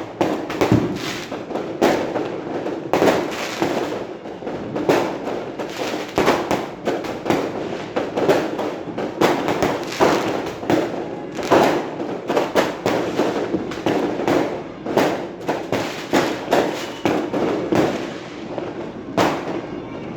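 Fireworks going off in a continuous barrage of overlapping bangs and crackles, irregular and without a pause, with a louder blast about every second.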